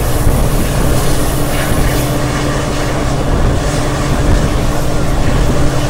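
Diesel-hauled passenger train running, heard from on board: the locomotive's diesel engine drones with a steady low hum over continuous running noise from the train.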